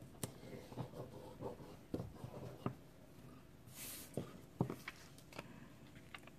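Faint taps and small clicks of fingers pressing stickers onto a wooden letter and picking through loose plastic sequins and paper stickers. A brief sliding rustle comes about four seconds in as a hand sweeps through the sequin pile.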